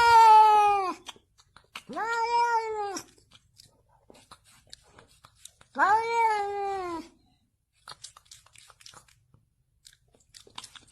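A domestic cat meowing: three long, drawn-out meows, each about a second long, their pitch sagging slightly toward the end, with faint ticks and clicks in the pauses between.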